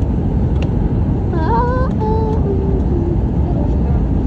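Steady low rumble inside a jet airliner's cabin as the plane rolls along the ground, engine and rolling noise blending into one even drone.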